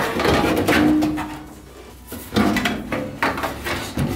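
Sheet-metal furnace blower housing scraping and clattering against the furnace cabinet as it is slid out, in two bouts of metal rattling with a short ring in each.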